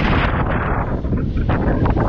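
Strong wind buffeting the microphone: a loud, low rumble, with the hissier upper part easing off about halfway through.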